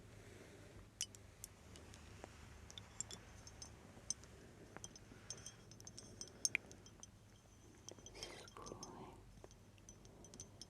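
Soft, scattered clicks and light taps close to the microphone, several with a faint glassy ring, and a breathy sound about eight seconds in.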